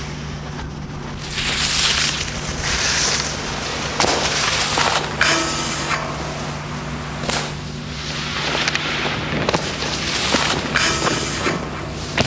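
Skis scraping and sliding on snow and a rail in several loud, noisy bursts with a few sharp knocks, over a steady low hum.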